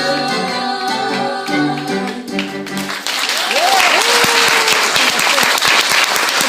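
The last held notes of a musical-theatre song with accompaniment end about three seconds in. Audience applause then breaks out, with a few rising and falling cries over it.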